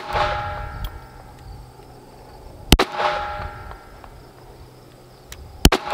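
Smith & Wesson M&P 22 Magnum pistol firing single .22 Magnum rounds about three seconds apart, once about three seconds in and again near the end. A moment after each shot comes the ring of a hit steel target.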